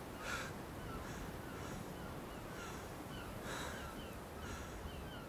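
Crows cawing, short harsh calls repeating about once a second with the loudest near the middle, over faint quick high chirps.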